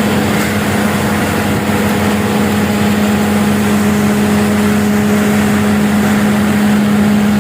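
Leaf vacuum truck running and sucking up roadside leaves: a loud, steady hum at one constant pitch over a rushing noise of air.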